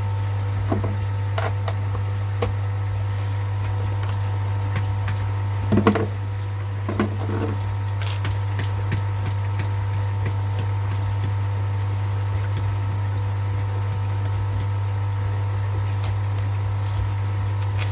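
Steady low electric hum of a running pond pump, with scattered clicks and two short clusters of louder knocks near the middle as small parts and screws are handled.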